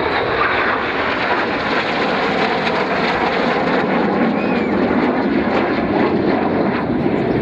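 BAe Hawk jets flying past low and close, their Adour turbofans making a loud, steady jet noise that comes up sharply at the start and holds.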